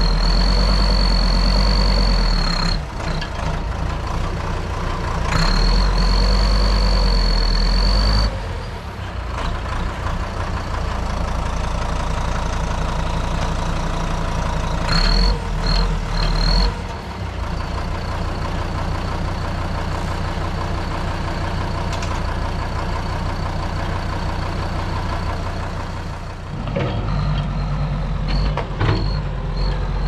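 Deutz DX tractor's air-cooled diesel engine running hard under load as the front loader works against a tree stump. A high steady whine rides on top of it for two spells in the first eight seconds and in short spurts later, when the engine is loudest.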